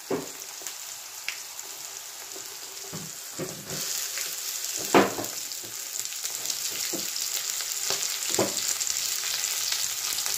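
Onion and tomato frying in a kadai with a steady sizzle that grows louder about four seconds in, as chopped Malabar spinach leaves go into the hot oil. A few knocks against the pan along the way, the loudest about five seconds in.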